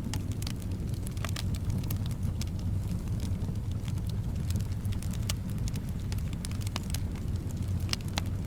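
Wood fire in a fireplace crackling, with irregular sharp pops and snaps over a steady low rumble of soft wind.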